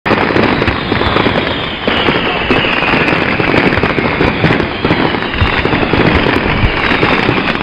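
A string of firecrackers going off in a rapid, unbroken crackle of pops.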